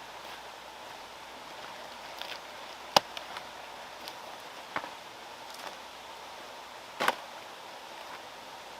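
A handful of sharp knocks or taps over a steady rushing hiss; the loudest comes about three seconds in, another near five seconds and a doubled one about seven seconds in.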